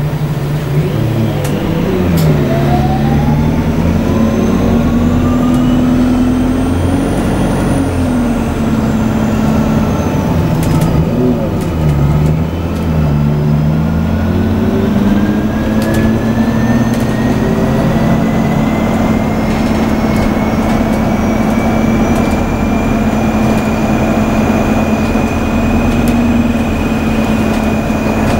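Alexander Dennis Enviro400 Hybrid bus pulling away and accelerating, heard from inside. The electric drive's whine climbs steadily in pitch, dips briefly about eleven seconds in, then climbs again and levels off. Under it runs the low drone of the diesel engine.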